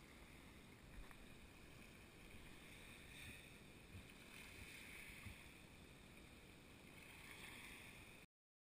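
Near silence: a faint, even hiss with a few soft low knocks, cutting off to dead silence near the end.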